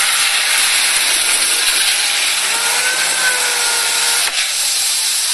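Compact Komatsu wheel loader working in loose gravel: a steady, hissing crunch of gravel under its bucket and tyres, with a faint whine in the middle and a sharp click about four seconds in.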